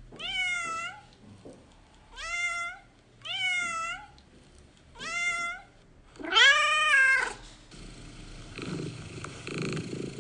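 Domestic cat meowing five times, each call rising then falling in pitch, the last one longest and loudest. After that the cat purrs in a rhythmic rumble.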